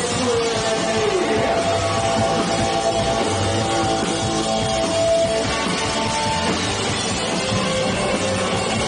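Live rock band playing: electric guitars, bass guitar and drum kit, with a long held note about two to five seconds in.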